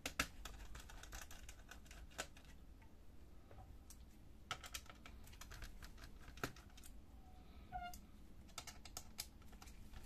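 Faint, scattered light clicks and taps of plastic and metal as gloved hands handle a laptop's 2.5-inch hard drive and its metal mounting bracket, lifting them out of the drive bay.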